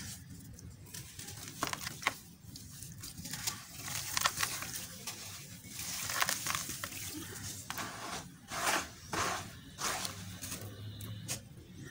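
Lumps of gritty red dirt crumbled by hand, the grit sprinkling and crackling into a tub of muddy water, with fingers swishing and splashing through the mud. The sound is irregular, with a few louder swishes near the end.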